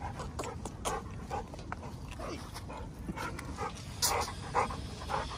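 A dog vocalizing in a run of short sounds, about two a second, the loudest pair about four seconds in.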